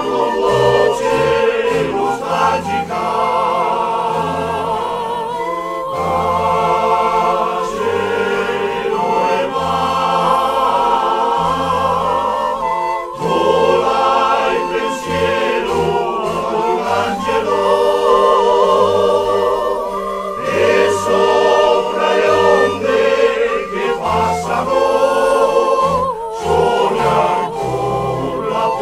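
Firlinfeu (Lombard pan flute) ensemble music: many pipes holding wavering chords over a bass line of short repeated low notes.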